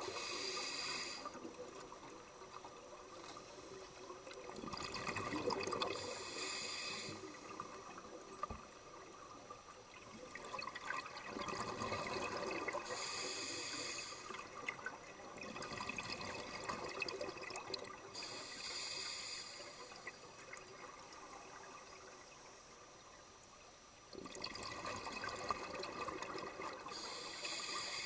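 Scuba diver breathing through a regulator underwater: a short hiss on each inhale, about every six seconds, and bubbling exhaust between them on each exhale.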